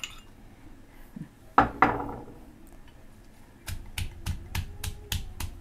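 Pestle pounding in a mortar, crushing bird's eye chilies into pounded coriander root and garlic for a dipping sauce. Two heavy strikes come about one and a half seconds in, then near the end a quick, even run of strokes at about five a second.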